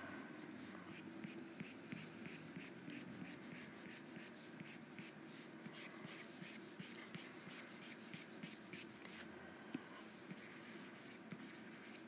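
Faint scratching of a stylus on a drawing tablet, in quick short strokes about three a second, with a brief pause about nine seconds in.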